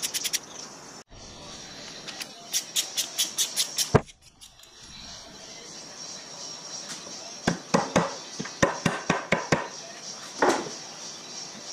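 Socket ratchet clicking in quick runs of about seven clicks a second as the head bolts of a Ford 59AB flathead V8's cast-iron cylinder head are turned, with a single sharp knock about four seconds in and a duller thud near the end.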